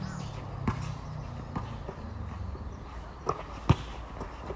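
A basketball bouncing on an outdoor hard court during a pickup game: about five sharp, irregular thumps, the loudest about three and a half seconds in.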